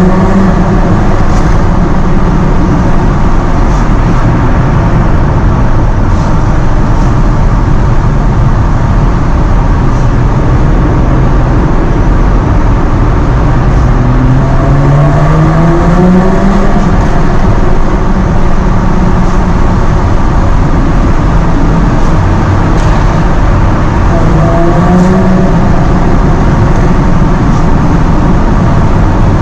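Jaguar F-Type engine and exhaust under way over steady road and wind noise. The engine note climbs as it accelerates about halfway through and again near the end, settling back to a steady cruise in between.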